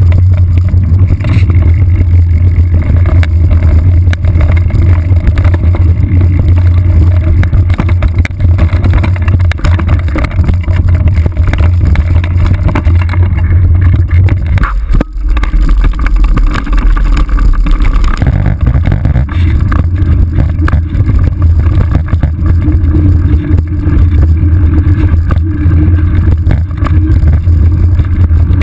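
Loud, steady low rumble of riding noise picked up by a saddle-mounted action camera as the bike runs along a dirt trail, with a brief shift in the rumble about halfway through.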